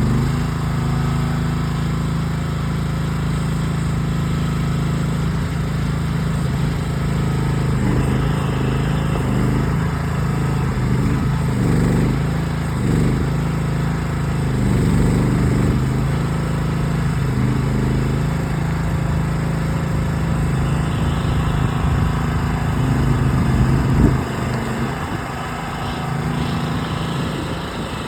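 Small gas engine of a Groundhog ZH12G mini excavator running steadily while it digs, its sound swelling now and then, with a single sharp knock near the end.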